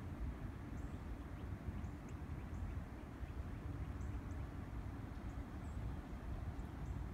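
Steady low rumble of outdoor ambience, uneven and fluttering, with faint short high chirps scattered through it.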